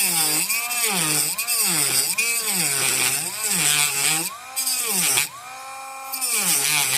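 Dremel rotary tool with a metal-cutting wheel grinding through hard plastic. Its motor pitch sags and recovers about once a second as the wheel is pressed in. Midway the grinding stops for about a second, leaving the motor spinning free, then resumes until the cut goes through.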